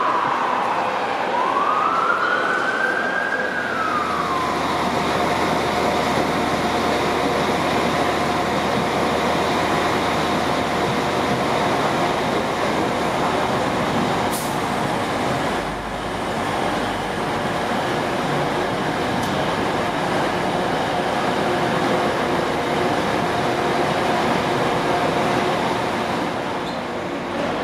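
A siren wails, falling, rising and falling again over the first few seconds. Then a Class 185 diesel multiple unit pulls in and runs with a steady engine hum carrying a faint even tone.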